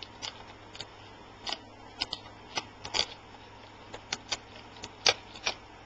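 Small hand tool prying and scraping at the edge of an LCD panel's frame: a string of sharp, irregular clicks and ticks, the loudest a little after five seconds.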